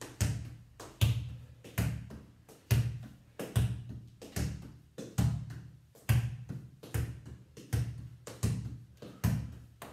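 Football being juggled on the feet: a regular series of thumps, about one every 0.8 seconds, as the foot strikes the ball, each ringing briefly in a small hard-walled room.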